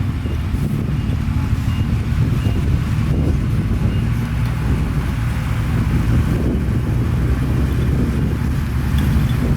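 Heavy diesel engine of earthmoving machinery running steadily, with a low, even engine note throughout.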